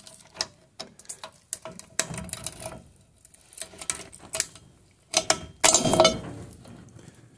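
Metal clicks and knocks as a handbrake cable end and its return spring are worked off the parking-brake arm of a 1995 Holden Rodeo's rear drum brake. A louder clatter of metal, with a light ring, comes about five to six seconds in.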